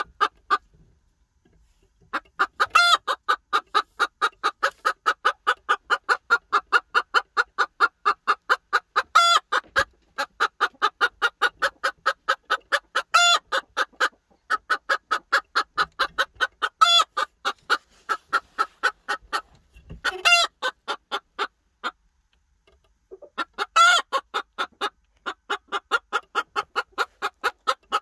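A silkie bantam hen clucks in long, fast runs of short, even clucks, several a second, with a louder squawk every few seconds. The clucking comes as a hen stands at a nesting box that another hen is occupying. The runs break off briefly near the start, about halfway through, and for a couple of seconds late on.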